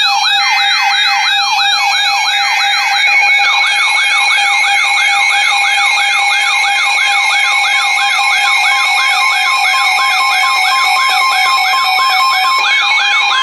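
Electronic emergency alert siren: a fast, repeating rise-and-fall sweep, about two and a half cycles a second, over steady electronic tones, with a steady tone added near the end. It is the alert that comes before a severe thunderstorm warning broadcast.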